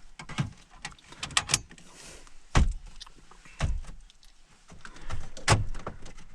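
Plastic dash trim panel being handled and worked into place, giving a string of knocks, clicks and rattles, with two heavier thumps about two and a half seconds and five and a half seconds in.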